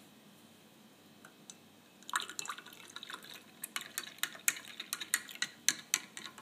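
Hot milk poured from a bottle into a glass of beaten egg yolk, rum and sugar, starting about two seconds in, with splashing and a run of sharp clicks. Near the end, a glass stirring rod clicks against the glass as the drink is stirred.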